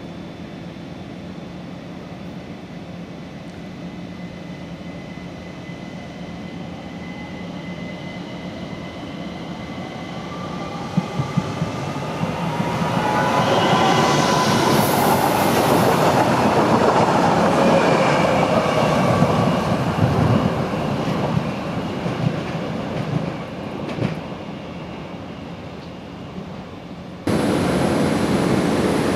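ÖBB class 4024 Talent electric multiple unit approaching and passing close by, its motors whining in gliding tones over wheel and rail noise, with a few clicks over the rail joints; it is loudest about halfway through, then fades. Near the end the sound cuts abruptly to the steady hum of a Talent standing at the platform.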